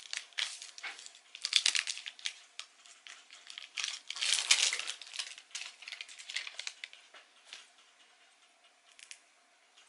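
Plastic wrapper of a syringe being peeled open and handled, in irregular crackly bursts loudest about one and a half and four and a half seconds in, dying down to faint rustles after about seven seconds.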